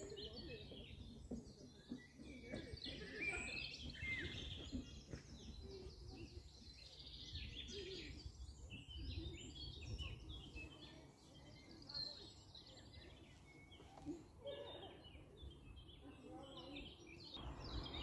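Many small songbirds chirping and singing at once, a dense mix of short calls and trills, over a low steady rumble. About a second before the end a steady hiss comes in.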